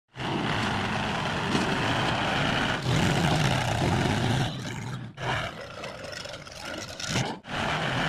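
Mahindra 475 DI tractor's diesel engine running loud, hauling a loaded trolley. The sound breaks off abruptly a few times and is quieter in the second half.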